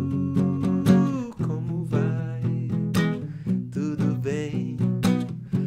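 A man sings over a rhythmically strummed acoustic guitar. He holds one long note that ends about a second in, then carries on with a melody.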